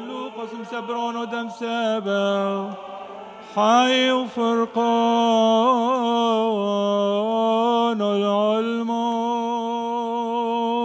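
A Syrian Orthodox cleric's solo male voice chanting a liturgical prayer into a microphone. He sings long held notes, with wavering melismatic ornaments partway through, and holds one steady note near the end.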